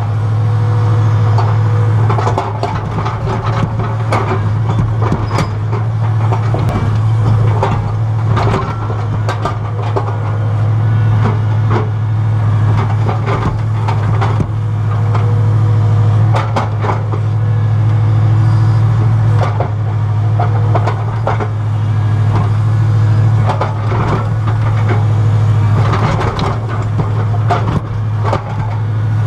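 Excavator engine running steadily under load, heard from inside the cab as a constant low hum, with irregular knocks and clatter as the bucket digs into and scrapes the soil.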